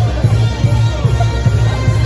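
Loud music with a steady, pulsing bass beat and a wavering melody line above it.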